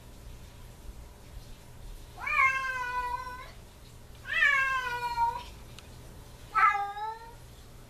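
Domestic cat crying at a closed door, three long drawn-out cries, each rising and then falling in pitch, the last one shorter. The cat is calling after its owner, who has just left.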